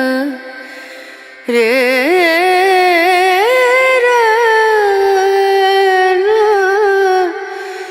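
Background song: a solo voice sings a long, ornamented melodic line with sliding, wavering pitch, starting after a short quieter gap about a second and a half in.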